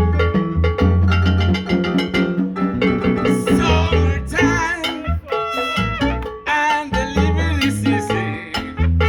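Salsa-style music with brass, a steady bass and percussion beat, and a wavering lead line, possibly sung, from about three seconds in.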